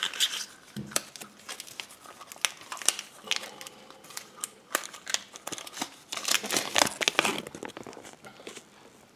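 Crinkling and rustling of a plastic-wrapped capsule toy and its paper leaflet being handled and unfolded, in irregular bursts with scattered sharp clicks, busiest about six to seven and a half seconds in.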